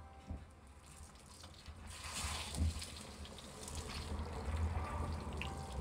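Hot oil sizzling in a frying pan as a tortilla is given a quick dip, turned and lifted out with metal tongs, softening it without browning. The sizzle rises about two seconds in and then holds steady, with a sharp click shortly after it starts.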